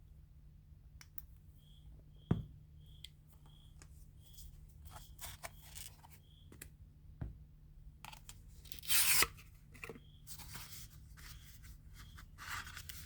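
Hands unpacking gear: faint clicks and rustles, a row of faint short high chirps about two a second in the first half, and a short rip of packaging about nine seconds in, the loudest sound.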